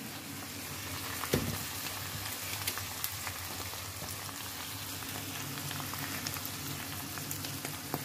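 Pieces of meat and chopped onion sizzling in oil in a frying pan, with small crackles throughout as a silicone spatula stirs them. A single knock comes about a second and a half in.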